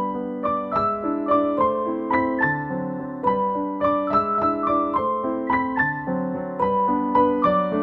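Background piano music: a melody of struck notes over chords, about three notes a second.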